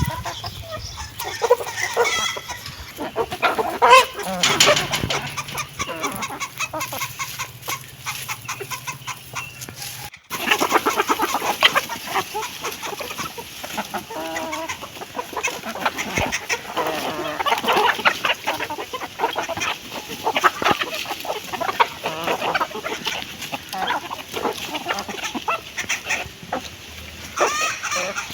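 Hens clucking continuously in many short, overlapping calls. A low steady hum sits under the first third and stops at an abrupt break about ten seconds in, after which the clucking carries on densely.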